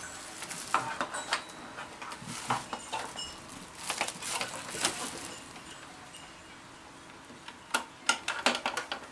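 Handling of a printer's power cable inside its plastic bag: plastic crinkling with scattered clicks and knocks, and a quick run of sharp clicks near the end.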